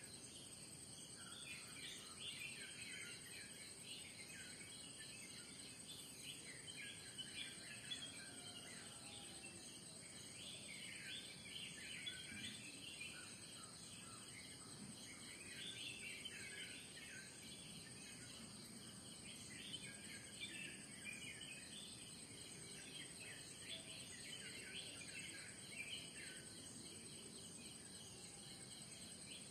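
Faint morning chorus of many birds chirping and calling in quick, irregular bursts, over a steady high-pitched insect drone.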